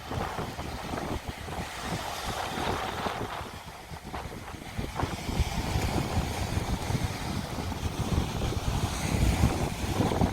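Sea wind buffeting the microphone in gusts, over the hiss of waves washing on the beach; the gusts grow stronger about halfway through.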